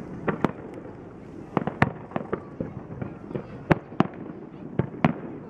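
Firework display: about a dozen sharp bangs of bursting shells, irregularly spaced, over a steady rumbling background.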